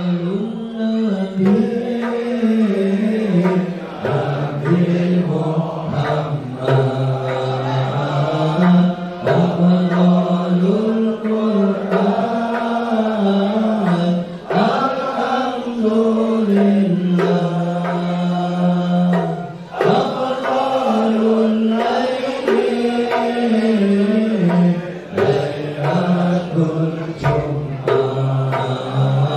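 Male voices chanting an Islamic sholawat in long melodic phrases, led by a singer on a microphone. Hand-struck frame drums (terbang) sound along with it.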